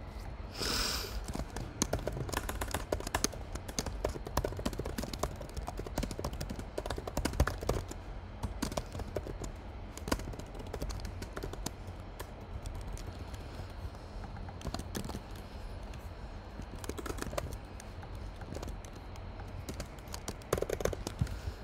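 Typing on a computer keyboard: a long run of quick, uneven key clicks.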